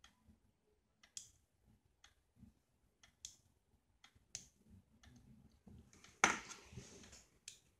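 Faint, scattered small clicks from a mechanical pencil being worked by hand at its lead tip, with a louder brief rustle of handling about six seconds in.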